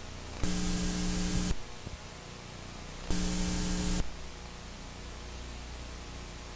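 Static hiss with a low mains hum, broken by two louder bursts of buzzing static about a second long each, one near the start and one about three seconds in.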